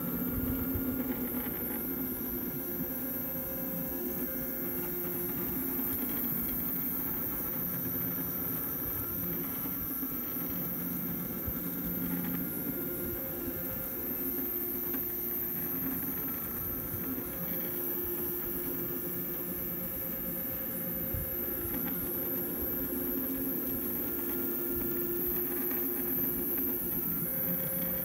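Clay 3D printer running as it extrudes and moves its print head: a steady mechanical whine made of several tones that shift in pitch every second or few as the stepper motors change speed and direction.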